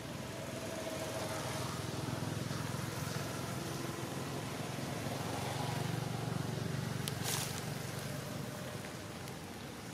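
A low motor hum, as of a vehicle passing by, swells over several seconds and then fades. There is a short sharp crackle about seven seconds in.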